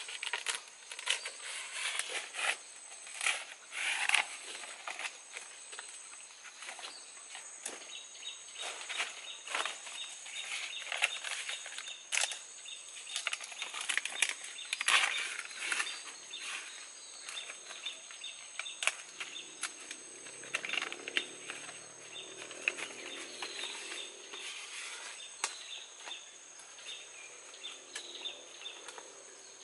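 Large fresh leaves rustling and crackling as they are handled and pinned with thin bamboo splints, in short irregular rustles and clicks.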